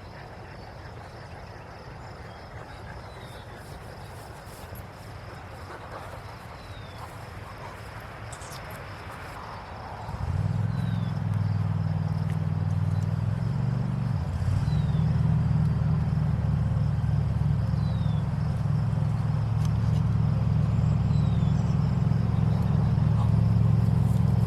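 Faint outdoor background with insects, then about ten seconds in a lawn mower's small petrol engine starts and runs steadily, stepping up in speed a few seconds later.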